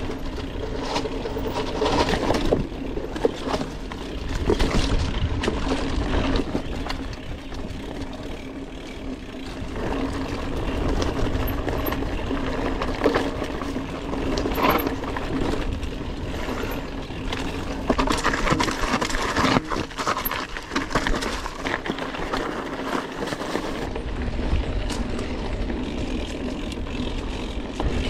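Mountain bike riding down rough woodland singletrack, recorded from the bike: the bike rattles and clatters over roots, rocks and ruts, with a steady buzz and a low wind rumble underneath.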